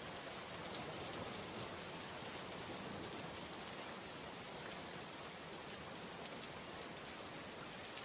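Steady, even hiss with a fine pattering texture: a rain-like weather ambience sound effect.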